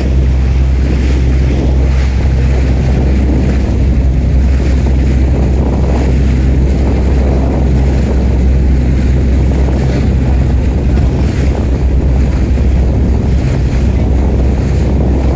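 Boat engine running steadily at cruising speed, with water rushing past the hull and wind buffeting the microphone.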